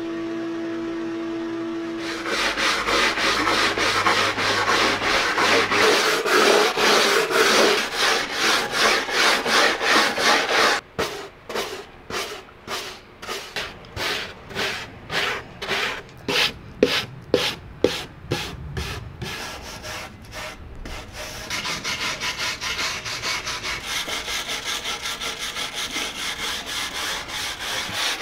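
A steady hum for the first two seconds gives way to wood being worked by hand in fast back-and-forth rubbing strokes. In the middle the strokes slow into separate, spaced strokes, then settle into a steady rhythm of about two a second.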